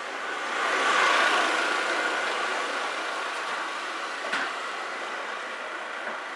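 Motor scooter engine running in the alley, swelling about a second in and then slowly fading, with one sharp click a little past four seconds.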